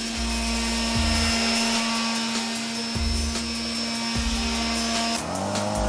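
Electric palm sander running steadily against a pressure-treated pine handrail, a constant motor whine that breaks off about five seconds in, under background music.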